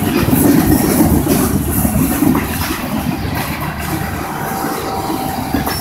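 Freight train cars rolling past: a steady rumble and rattle of steel wheels on the rails, a little louder for the first couple of seconds.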